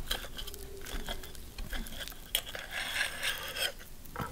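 Table knife and fork cutting a zucchini pancake on a ceramic plate: the blade scrapes against the plate, with a few light clicks of metal on china and a longer scraping stretch past the middle.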